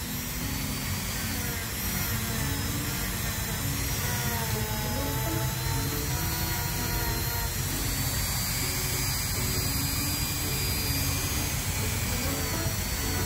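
Dremel rotary tool running with a thin disc pressed against the rock, grinding soft grey matrix away from almandine garnet crystal faces. Its whine wavers slightly in pitch as the disc bears on the stone.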